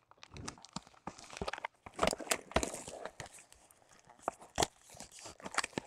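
Trading-card packaging and cards being handled: irregular crinkling and rustling with sharp clicks and taps, the loudest a few seconds in.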